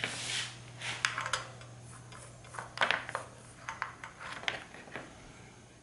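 Light, scattered clicks and rustles of hands handling copper desoldering wick and a soldering iron, over a steady low hum. The clicks thin out near the end.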